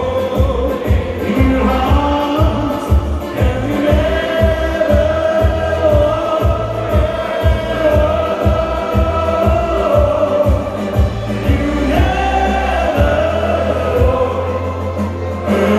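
Music with a steady beat and long held notes.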